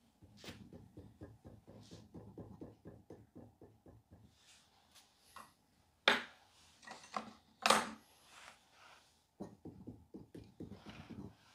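A hand-held modelling tool striking and scraping wet clay in quick, short, dull strokes, about eight a second, as the surface of a clay figure is worked. The strokes pause near the middle, where two louder, sharp sounds come about a second and a half apart, then the strokes start again.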